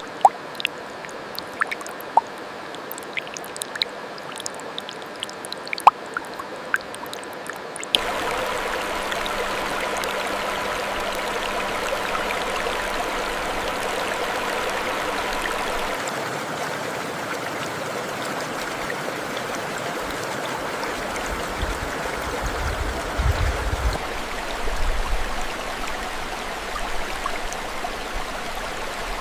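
Mountain stream flowing: a steady rush of water with small clicks and splashes in the first few seconds. It turns abruptly louder and fuller about eight seconds in. Low rumbles of wind come in later on.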